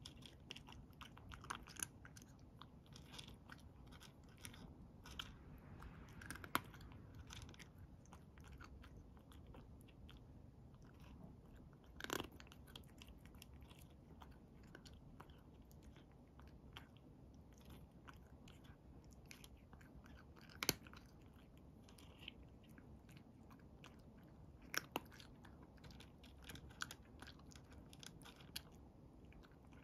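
A cat crunching and chewing dry kibble: a steady run of faint crisp crunches, with a few sharper, louder clicks, the loudest about twelve and twenty-one seconds in.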